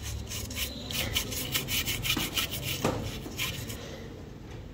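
Paintbrush stroking paint onto cardboard: quick repeated scratchy strokes, about five a second, dying away near the end.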